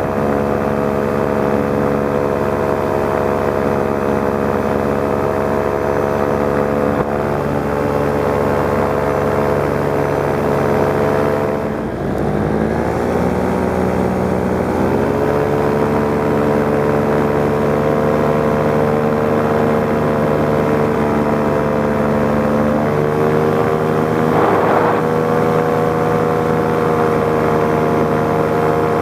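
Paramotor engine and propeller running steadily in flight. A little under twelve seconds in, the engine drops briefly and its pitch climbs back up over the next few seconds. It steps up slightly again a little past twenty seconds.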